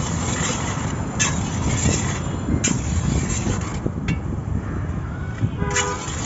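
Metal ladle scraping and stirring bean seeds in an iron wok, a few sharp scrapes standing out, over a steady wash of street traffic noise. A short horn sounds near the end.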